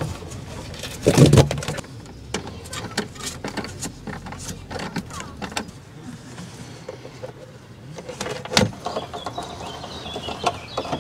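Corrugated plastic snorkel air hose and air filter housing being handled and fitted by hand: irregular plastic clicks, creaks and rubbing, with a louder knock about a second in and another about eight and a half seconds in.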